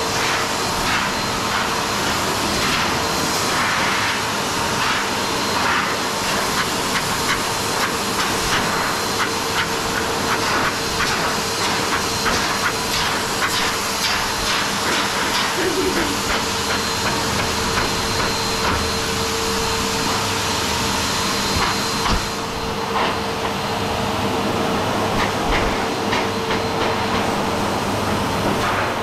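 High-velocity dog dryer blowing steadily through its hose nozzle into a thick dog coat: a loud rushing hiss over a steady motor whine. The hiss turns a little duller about three-quarters of the way through.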